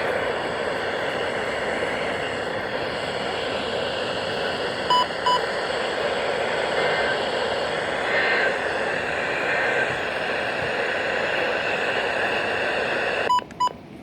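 Weather radio receiver hissing with steady static. There are two short electronic beeps about five seconds in and two more near the end, just before the hiss drops away.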